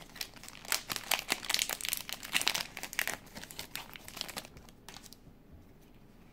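Foil wrapper of a Pokémon trading-card booster pack crinkling as it is opened out and the cards are slid from it; the crinkling stops about five seconds in.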